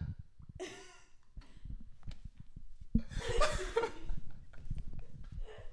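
Hard, breathy laughter broken up with coughing. The loudest stretch comes from about three to four and a half seconds in.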